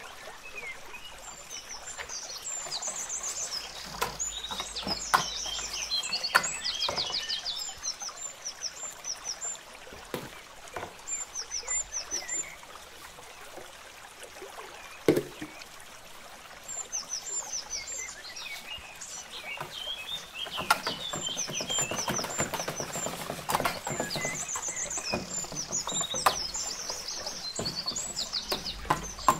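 A wire whisk beating gram-flour pakora batter in a plastic bowl, in two spells of quick rhythmic strokes, with spoon clicks and a sharp knock between them. Small birds chirp and trill throughout.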